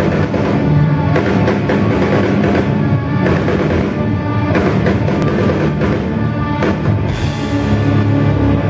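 Live heavy rock band playing loud: distorted electric guitars and bass over a drum kit, with sharp cymbal and drum hits scattered through, heard from the crowd.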